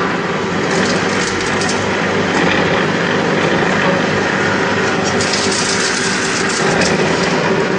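Electric peanut-processing machine running steadily: a constant motor hum under a dense, rattling noise, with brief bursts of harsher rattle about a second in and again about five seconds in.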